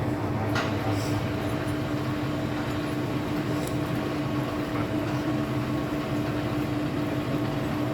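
Metal lathe running at its slowest speed with a steady hum, a knurling tool working on the nut, and a couple of light clicks.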